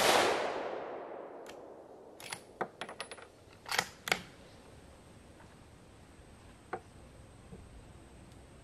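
The fading echo of a 6.5 Creedmoor rifle shot, dying away over about a second and a half. It is followed by a quick series of sharp metallic clicks and clacks from about a second and a half to four seconds in: the Ruger American Predator's bolt being worked to eject the spent case and chamber the next round. One more light click comes near the end.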